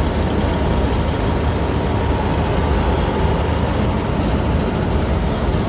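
Combine harvester running steadily at close range, its unloading auger pouring wheat into a tractor trolley: a loud, even mechanical drone with a faint steady whine.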